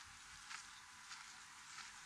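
Faint footsteps on a gravel trail, a soft crunch about every 0.6 seconds at an easy walking pace, over a steady outdoor hiss.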